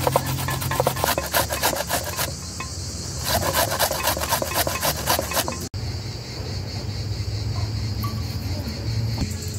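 Onion being grated on a metal box grater: rapid, rasping strokes in two runs with a brief pause between them. About six seconds in the rasping stops abruptly, and a steadier low hum follows.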